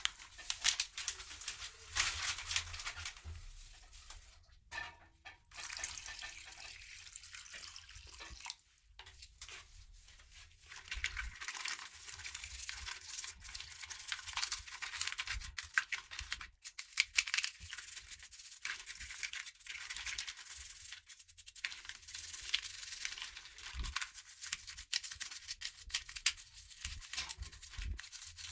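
Scratchy abrasive rubbing on a small part, as in scrubbing or sanding during the restoration of an old remote-control helicopter. The rubbing comes in irregular strokes, with quieter pauses about four seconds in and again around nine to eleven seconds.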